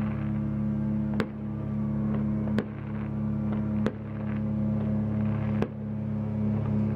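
Fireworks going off: four sharp bangs about a second and a half apart, over a steady low mechanical hum.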